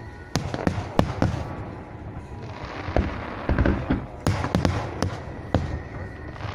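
Aerial firework shells bursting: about a dozen sharp bangs, irregularly spaced and some in quick clusters, with crackling between them.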